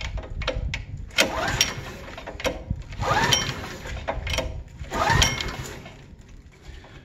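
Recoil starter rope on the small gas engine of an Ingersoll Rand gas-driven air compressor pulled three times, about two seconds apart, each pull a rising whir as the engine turns over without catching. The engine has never been started, and the owner thinks it needs priming.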